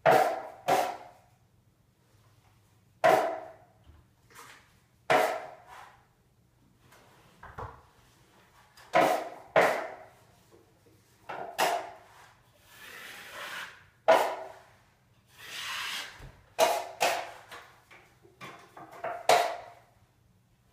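Drywall knife working joint compound: short, sharp metal scrapes with a brief ring, many coming in quick pairs. Two longer, softer scrapes come about two-thirds of the way through.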